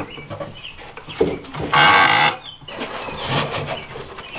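Chickens clucking, with one loud, short cry about two seconds in.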